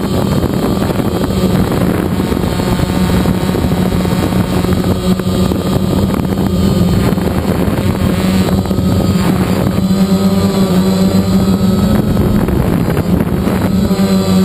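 DJI Phantom quadcopter's electric motors and propellers buzzing steadily in flight, heard from the GoPro mounted on it, with wind rushing over the microphone. The pitch wavers briefly a little past the middle as the motors change speed.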